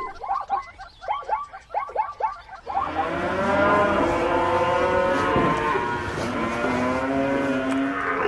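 Several cows mooing at once in long, overlapping calls, starting about three seconds in. Before that comes a quick run of short, repeated animal calls.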